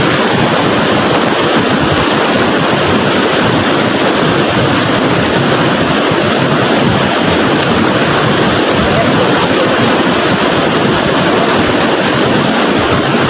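Floodwater in a swollen river rushing and churning, a loud, steady roar of water.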